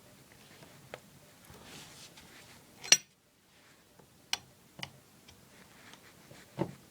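Tools and plumbing parts being handled: a handful of separate sharp knocks and clicks, the loudest about three seconds in.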